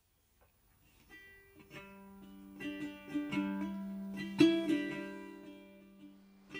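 Plucked-string music that starts about a second in after a moment of silence, picked notes ringing out and fading.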